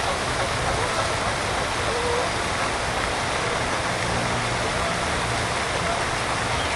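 Steady outdoor background rush, constant in level, with a faint low hum joining about halfway through.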